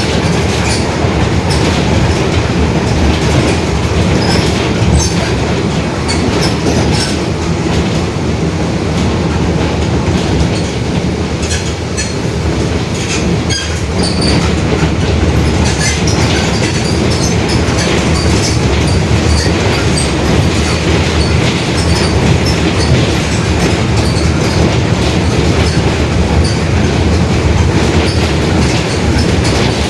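Mercedes-Benz OF-1721 BlueTec 5 city bus under way, its diesel and drivetrain giving a steady rumble with the differential growling. Many small rattles and clicks come from the body throughout.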